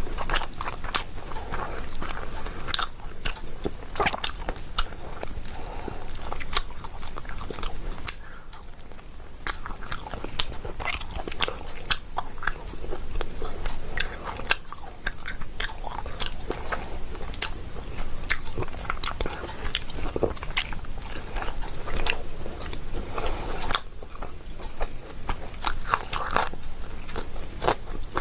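Close-up chewing and biting of pomfret fish with rice, with many short crunches and clicks.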